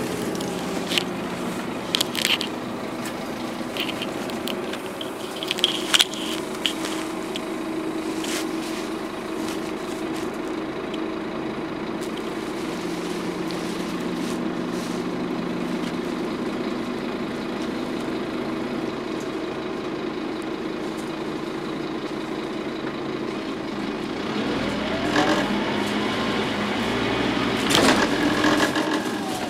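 Scania N230UD double-decker bus heard from inside the passenger saloon: its nine-litre five-cylinder diesel runs with a steady drone, while fittings rattle and click sharply in the first several seconds. Near the end the drive note glides up and down in pitch and grows louder.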